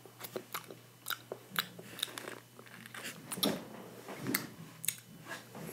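A person chewing a chewy Lemonhead & Friends candy, with irregular short mouth clicks about three or four a second.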